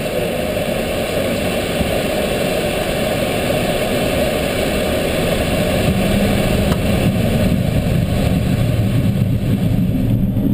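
Light aircraft's engine heard from inside the cockpit, running up to takeoff power as the takeoff roll begins. The steady engine noise grows louder and deeper from about six seconds in.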